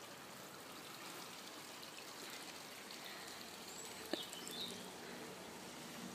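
Faint, steady outdoor background hiss, with one sharp click about four seconds in.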